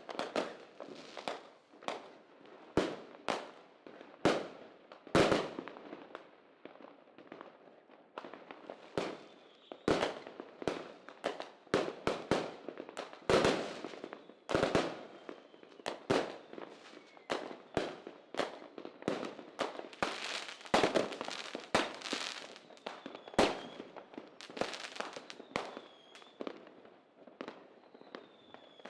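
Fireworks going off: irregular sharp bangs and crackles, often several a second, each with an echoing tail, and a few faint whistling glides near the end.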